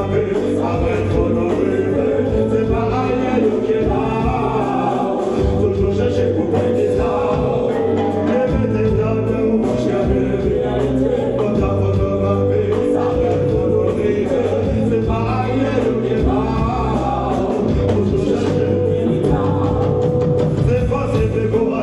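Live reggae band playing, with singing over drums, bass and guitar and a steady, pulsing bass line.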